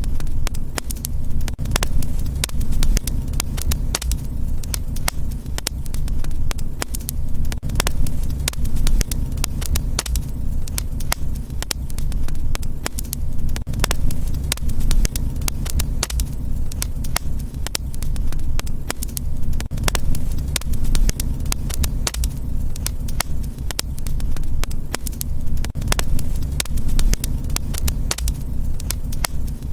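Wood fire crackling continuously, with many sharp pops and snaps over a steady low rumble of burning.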